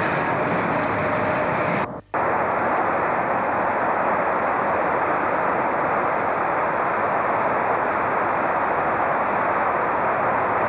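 Freight train of bogie hopper wagons rumbling past on the track, cut off abruptly about two seconds in. After that comes an even, steady rushing noise.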